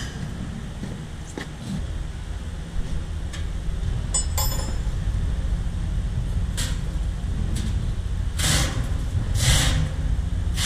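Steady low hum of a metal-fabrication workshop, with a few light knocks and a brief metallic ring about four seconds in. Near the end come two short, loud noisy rushes about a second apart.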